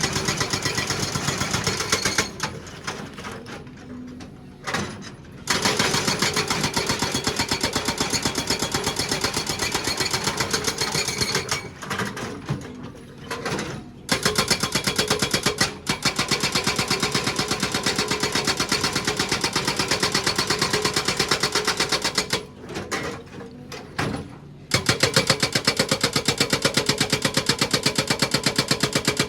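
Excavator-mounted hydraulic breaker hammering rock with rapid, even blows, in four runs broken by three pauses of two to three seconds, during which only the excavator's engine is heard.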